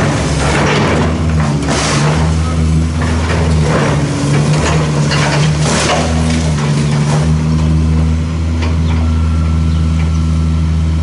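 Diesel excavator engines running steadily while a long-reach demolition excavator tears into a brick wall, with bricks and masonry crashing and crumbling down repeatedly during the first seven seconds or so; after that the engines run on with little debris noise.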